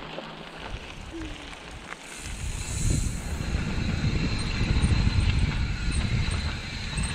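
Mountain bike rolling down a dirt and gravel trail: tyres crunching over stones, with the bike rattling and a low rumble. It gets noticeably louder about two seconds in.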